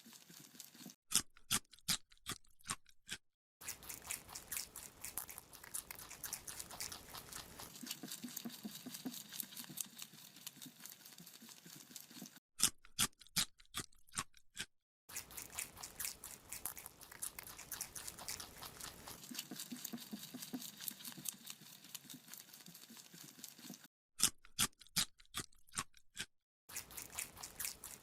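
Rabbit chewing a carrot: a fast, dense run of crisp crunches, broken three times by a couple of seconds of louder, separate crunches with silence between them.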